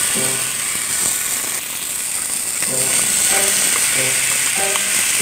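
Chicken pieces sizzling loudly and steadily in a little hot oil in a non-stick pan as they are laid in.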